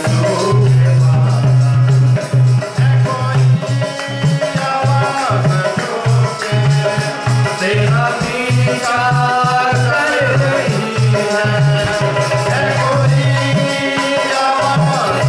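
Live Urdu Christian hymn: a man singing over his own keyboard accompaniment, with a steady pulsing bass beat and a shaker-like rattle.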